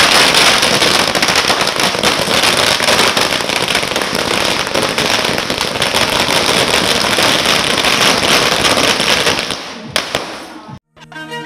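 A string of firecrackers going off, a dense, rapid crackle of many small bangs that dies away near the end. Violin music cuts in just before the end.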